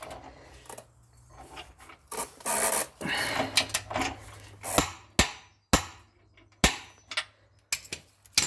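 Hand tools working on metal car parts: a rubbing, scraping sound for about a second and a half, then a string of sharp knocks about half a second to a second apart.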